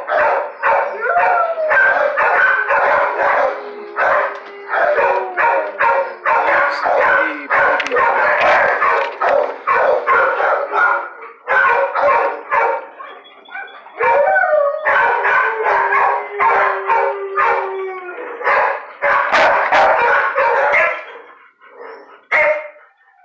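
Dogs in shelter kennels barking and howling, with many barks overlapping. The barking eases briefly about halfway through, then dies down near the end.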